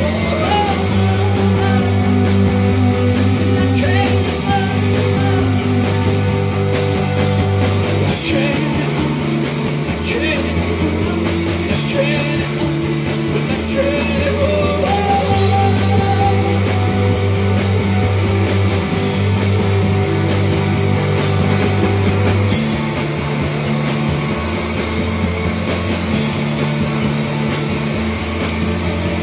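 Live rock band playing loud and steady: electric guitars over a drum kit, with low sustained notes changing every couple of seconds.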